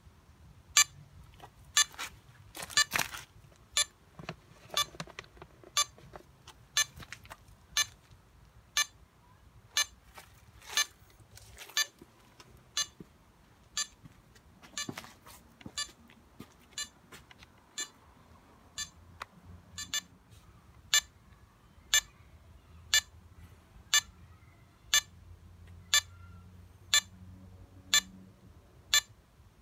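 Smartphone countdown-timer app beeping once a second, short sharp electronic beeps marking each second of a time-bomb countdown. A few rustling handling noises come in about two to three seconds in and again near the middle.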